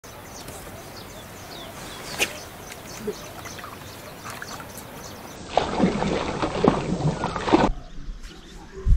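Small waves lapping and splashing at the water's edge, louder for about two seconds past the middle.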